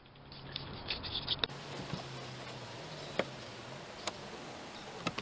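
A pencil held in a wrench being run along a van's inner wall to scribe its outline onto a plywood top, heard as a faint scraping with four light clicks spread through.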